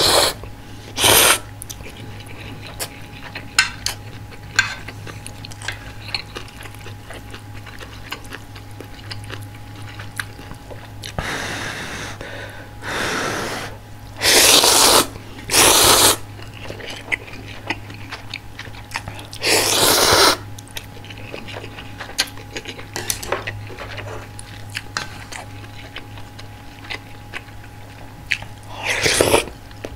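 A person slurping spicy instant ramen noodles in a series of loud slurps, each about a second long, with quieter chewing and small mouth clicks between them.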